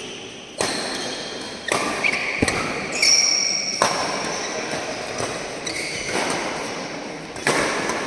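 Doubles badminton rally: about six sharp racket-on-shuttlecock hits, ringing in a large hall, with short high shoe squeaks on the court mat between them. There is a longer gap between hits in the second half.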